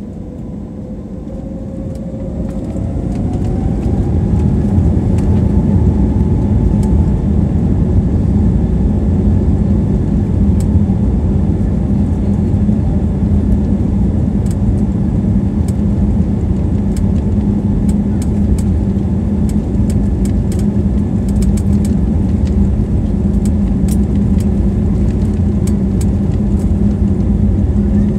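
Airbus A320-family airliner's jet engines heard from inside the cabin, spooling up to takeoff power with a rising whine over the first few seconds. Then a steady loud roar and rumble with scattered rattling clicks as the plane rolls down the runway.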